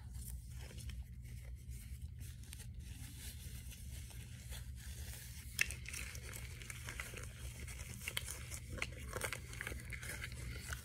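Thin plastic packaging crinkling and rustling as it is handled, with scattered small crackles and clicks.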